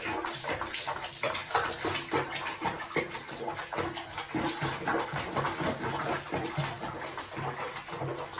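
Water sloshing and splashing in a small basin with a cat sitting in it, a quick run of small splashes.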